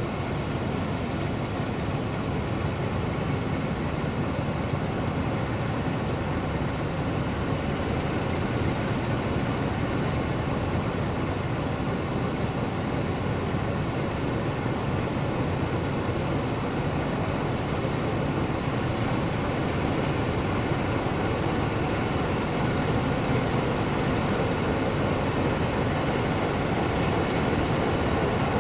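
Sulzer diesel engine of a Class 060-DA (LDE2100) diesel-electric locomotive running steadily as the freight train approaches slowly, the rumble growing gradually louder as it nears.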